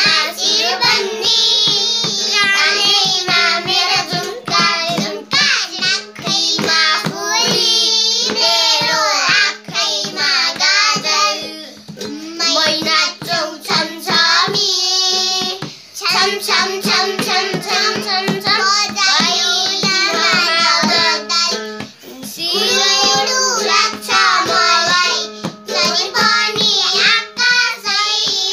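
Young children singing a Nepali song together in unison, accompanied by a steady beat on a madal hand drum and a small toy ukulele. The singing pauses briefly between lines a few times.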